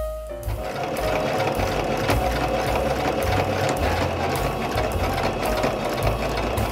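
Domestic electric sewing machine running at a steady speed, stitching through fabric; it starts about half a second in and stops near the end. Background music with a bass line plays underneath.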